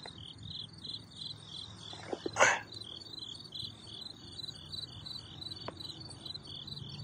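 Crickets chirping steadily, an even pulse of high chirps about three times a second. A brief louder sound cuts in once about two and a half seconds in.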